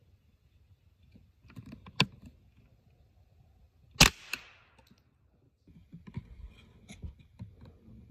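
A single shot from a scoped rifle about four seconds in, a sharp crack with a short echo and a click right after it. A sharper click comes about two seconds before it, with rustling in dry leaves and gun handling around both.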